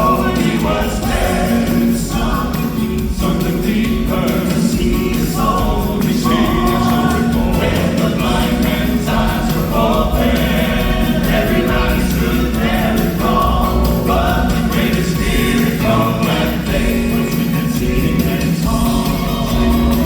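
Gospel group singing in harmony over continuous instrumental accompaniment.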